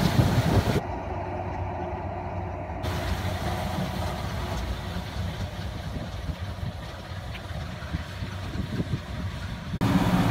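Massey Ferguson 6290 tractor engine running under load with a Krone round baler working behind it, heard from the field as the outfit passes and moves away. The sound drops abruptly about a second in and jumps back up, louder, near the end, as it is heard from inside the tractor cab.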